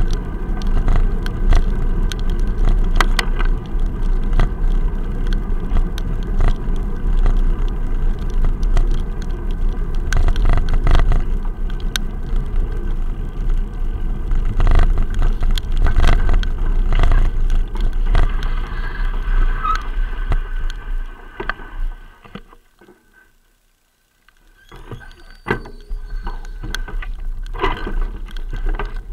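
Muffled rumble and frequent rattling knocks of a bicycle rolling over rough, wet road, picked up through the bike mount by an action camera sealed in a waterproof case. The rumble fades to near silence about 22 seconds in and comes back about two seconds later.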